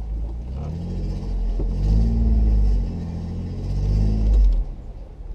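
Jeep Wrangler JK's engine under low-speed rock-crawling throttle, revving up and easing back in about four short swells over a steady deep rumble.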